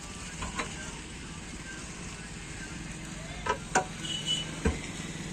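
An engine running steadily at a low hum, with a few sharp knocks in the second half.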